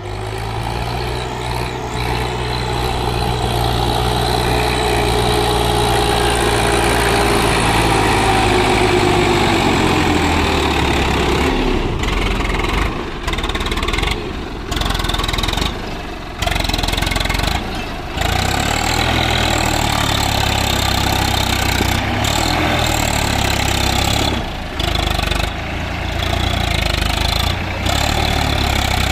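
Swaraj 744 XT tractor's three-cylinder diesel engine running hard as it drives through loose sand and climbs a sandy slope, its note sinking slowly partway through the first half. From about halfway the sound is broken by several brief gaps.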